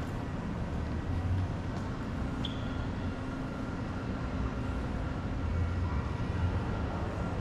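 Steady low rumble of street traffic, with a short high squeak about two and a half seconds in.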